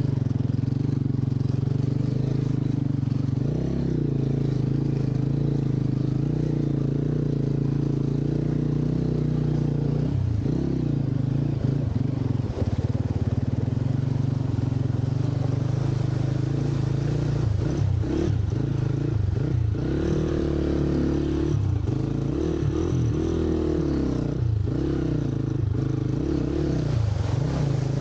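Scrambler motorcycle engine running, steady for about the first ten seconds, then revving up and down with throttle changes, with a few knocks.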